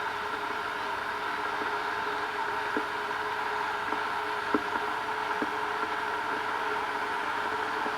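Kettle heating water toward the boil: a steady rushing hiss with a few short ticks and pops scattered through it.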